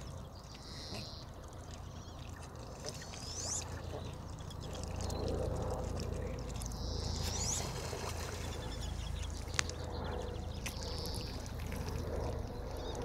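Pond-side waterfowl ambience: birds giving short high chirps and a few rising whistles, scattered through, over a steady low wind rumble on the microphone.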